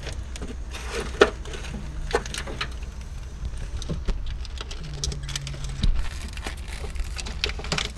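Irregular clicks, taps and rustling of plastic and rubber engine parts handled by hand: a vacuum hose being worked free of the wiring harness as the composite intake manifold is eased out of the engine bay. A sharper knock comes about a second in, and a steady low hum runs underneath.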